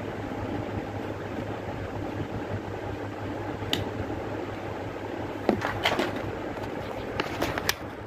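Sharp clicks and taps from a green plastic automatic wire stripper being handled: one about halfway through, then a cluster of several near the end. A steady low hum runs underneath.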